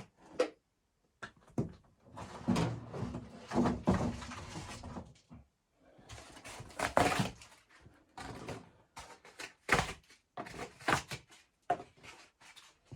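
Irregular knocks and thumps mixed with longer scraping, rustling handling noises.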